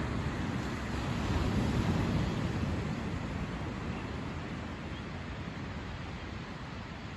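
Small ocean waves breaking and washing up a sandy beach, a steady rush of surf that swells in the first couple of seconds and then slowly eases, with wind rumbling on the microphone.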